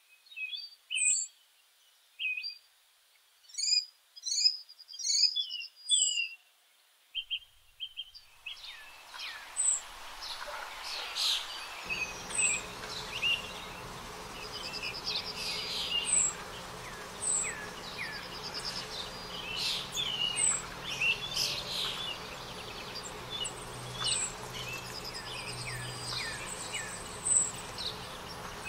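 Small birds chirping and singing in short high calls and trills. They are sparse against quiet at first. From about eight seconds in, many birds chirp over a steady background hiss.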